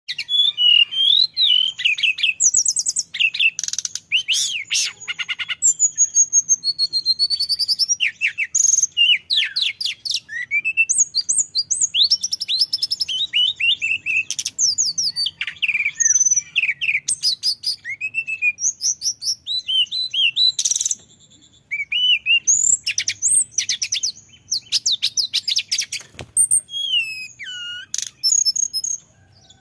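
Male hill blue flycatcher singing a long, varied song of rapid whistled trills, gliding whistles and chirps, with a brief pause a little past the middle.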